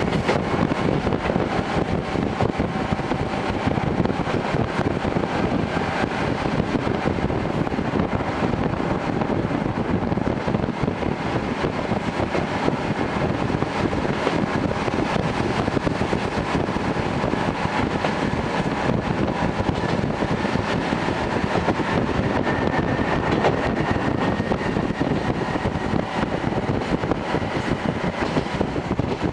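Inside a TH3501 diesel railcar running between stations: a steady, unbroken rumble of the diesel engine and wheels on the rails, with a faint high whine held throughout.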